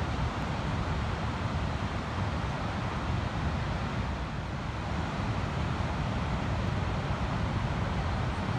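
Ocean surf breaking on a sandy beach: a steady wash of noise with a deep rumble, with no single wave crash standing out.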